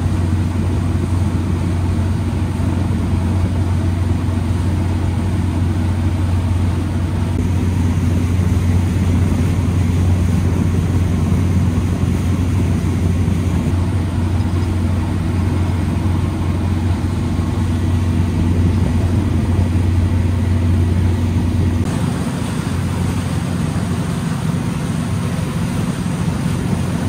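Arvor motorboat's engine running steadily under way, a constant low drone, with water and wind rushing past the hull. The sound shifts slightly at a cut near the end.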